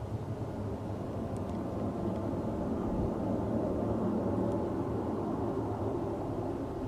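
A low, steady roaring rumble that swells slightly in the middle. Its source is unexplained; it is the kind of sound reported as a mysterious 'strange roaring noise'.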